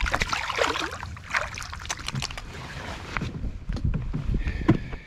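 Water splashing beside a boat as a released redfish kicks away from the angler's hand, then lighter sloshing with a few knocks.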